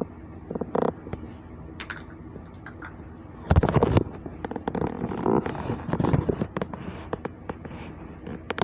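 A person burping: a loud burst about three and a half seconds in, then a long, uneven burp lasting a few seconds, with small clicks and knocks before it.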